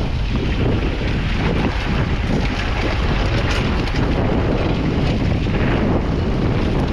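Massey Ferguson 35X's 2.5-litre three-cylinder diesel engine running steadily, with wind buffeting the microphone.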